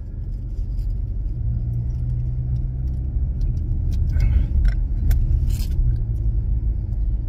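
Low, steady rumble of a car heard from inside the cabin. About four seconds in come a few short crinkles of paper as a pie is handled in its paper wrapper.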